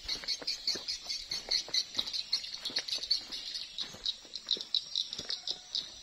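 Swiftlet calls at a swiftlet house: a dense, fast, high-pitched twittering chirp that keeps going without a break. Soft irregular knocks of footsteps through undergrowth sound beneath it.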